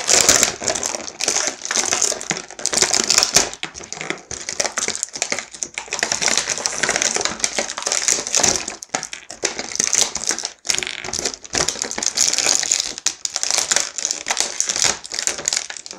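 Thin clear plastic packaging crinkling and crackling as it is handled: a moulded blister tray, then a small plastic accessory bag being opened, with dense irregular clicks throughout.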